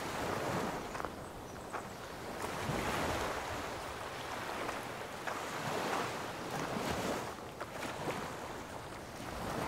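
Small sea waves washing over a rocky shore, the wash swelling and falling every few seconds.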